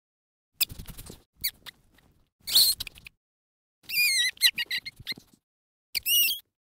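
An animal squealing: about five short, high-pitched squeals with a wavering pitch, separated by brief silences.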